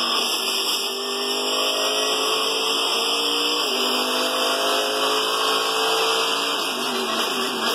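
Race car engine accelerating hard and shifting up twice: its pitch climbs steadily, drops sharply about halfway through, climbs again and drops once more near the end.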